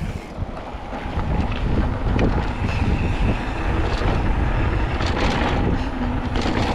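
Loud, steady rumble of wind buffeting the microphone, with a few short knocks scattered through it.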